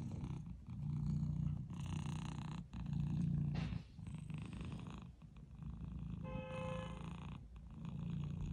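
Domestic cat purring close up, a low rumble that swells and fades about once a second with each breath. A short, higher pitched note cuts in briefly about six seconds in.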